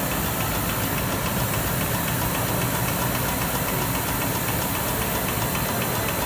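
Texilmesa T16 yarn rewinding machine running steadily as it winds yarn onto a package, with a fast, even ticking over a constant mechanical hum.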